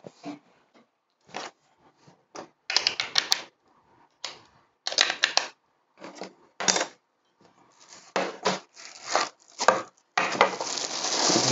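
Irregular clicks and clatter of small hard plastic parts being handled as AAA batteries are taken out of a battery charger. About ten seconds in, a longer stretch of plastic bag crinkling starts as the lamp is lifted out of its wrapping.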